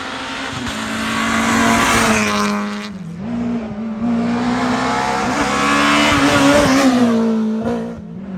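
Rally car engine pulling hard through the gears: the engine note climbs, drops with an upshift about three seconds in, climbs again, and falls away near the end.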